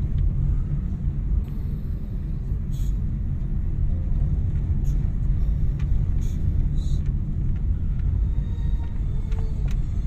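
Car cabin noise while driving: a steady low rumble of engine and tyres on a rough mountain road, with a few faint ticks and rattles.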